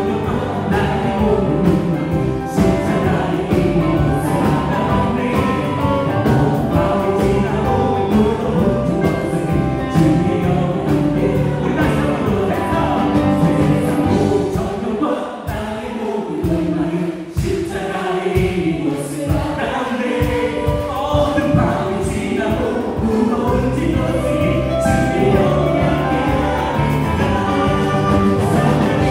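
Live Korean praise-and-worship band playing a gospel song with electric guitar, bass guitar, keyboards and drums, and a group of voices singing. The bass and drums drop away for a few seconds about halfway through, then come back in.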